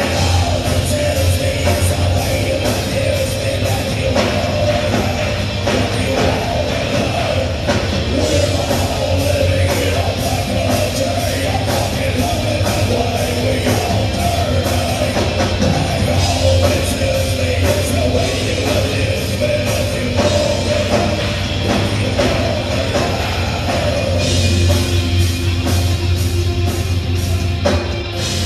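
A live heavy rock band playing loud: distorted electric guitars, bass and a pounding drum kit, with a singer's voice on top, heard from among the audience in a club.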